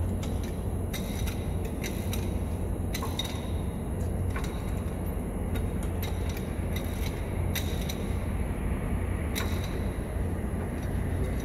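A motor running steadily with a low rumble, with scattered light clicks and taps over it.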